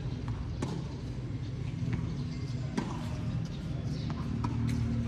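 Tennis ball struck by rackets and bouncing on a hard court in a rally: several sharp pops at uneven intervals, over a steady low hum.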